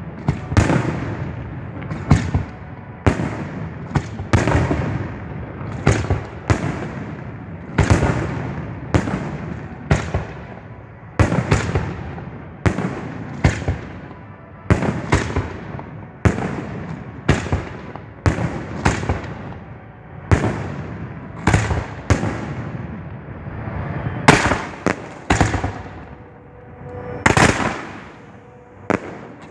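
Professional display fireworks heard close to the firing site: a steady run of sharp booms, about one or two a second, each trailing off in a rumbling echo.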